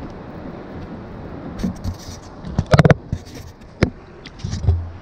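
Steady wind and water noise on a kayak at sea. A quick cluster of sharp knocks and clatters comes in the middle, the loudest sound, with a single sharp click a second later and a dull thump near the end.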